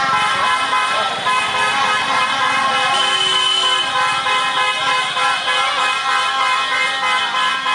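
Many motorcycle and scooter horns honking together, holding several steady tones at once, over the running of the bikes.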